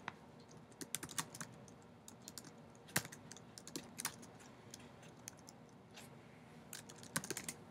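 Typing on a computer keyboard: faint, irregular key clicks in short runs, with pauses between them.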